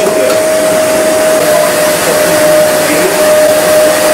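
A loud, steady rushing noise with a constant whine running through it, as from a fan-driven blower.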